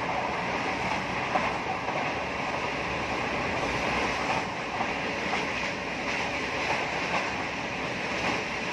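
Passenger train running at speed: a steady rush of wind and rumble of wheels on the rails, with an occasional faint click.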